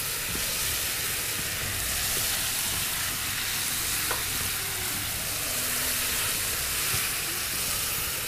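Chicken pieces with caramelized onions and soy sauce sizzling in a frying pan, stirred with a silicone spatula: a steady frying hiss with a small click about four seconds in.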